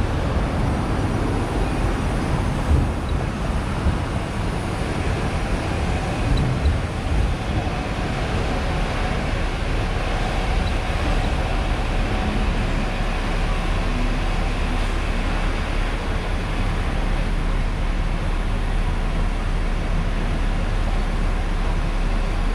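Hong Kong double-decker tram running along its rails, heard from the upper deck: a steady rumble of the tram in motion with street traffic around it, and a few low thumps about three and six seconds in.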